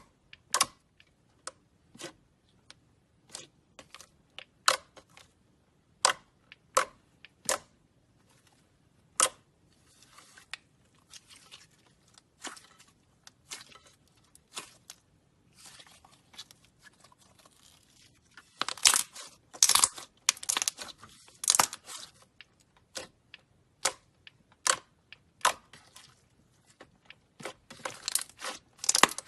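Slime being pressed and stretched by hand: sharp popping clicks as air pockets burst, one every second or so, then stretches of crunchy crackling that grow louder in bursts about two-thirds of the way through and again near the end.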